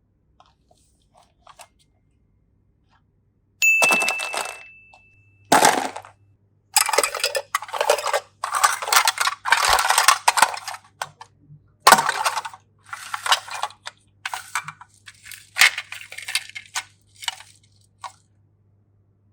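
A single bright ding about four seconds in, ringing on one high tone for about two seconds, then irregular crinkling and rustling of the foil wrapper of a Kinder surprise egg being handled and unwrapped.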